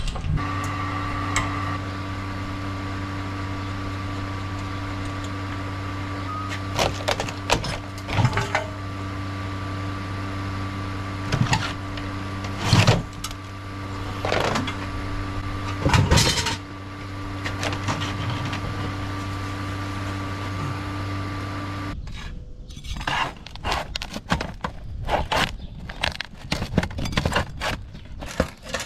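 A steady motor hum with scattered sharp knocks and clanks over it, which stops abruptly about three quarters of the way through. A run of metallic clicks and clanks follows.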